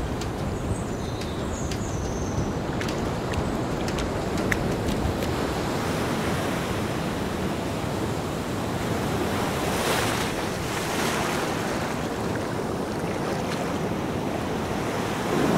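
Waves breaking on a beach with wind on the microphone: a steady rushing noise that swells briefly about ten seconds in.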